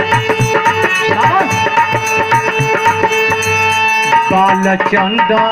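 Instrumental interlude of Birha folk music: sustained reed- or keyboard-like notes over a steady hand-drum beat. About four seconds in, the held notes stop and a bending melodic line takes over.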